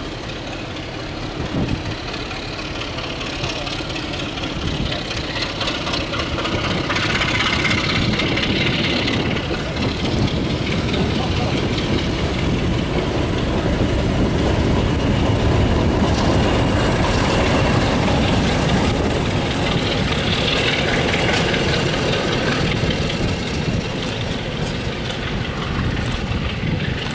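Class 33 and Class 50 diesel locomotives working as their passenger train departs, engine noise mixed with the rumble of coach wheels on the rails. The sound builds to its loudest about halfway through, then eases slightly.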